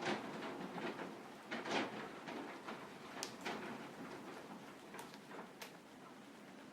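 Window shutters rattling and knocking irregularly in typhoon wind, with a few sharp clicks; the loudest rattle comes near two seconds in.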